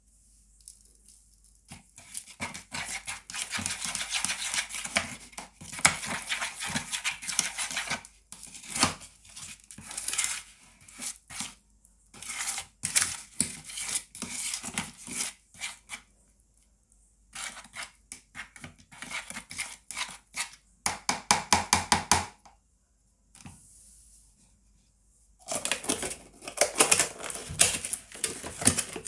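Metal spoon stirring and scraping a thick toothpaste-and-salt slime mixture in a plastic cup, in bursts that stop and start, with a quick run of sharp clicks about two-thirds of the way through.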